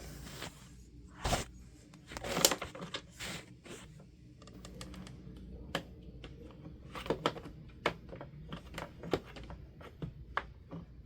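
Plastic front grille and housing of a Honeywell HT-900 fan being handled and shifted into place: irregular light clicks and knocks, the louder ones about a second and two and a half seconds in. The grille is sitting out of line with its screw posts and is being readjusted.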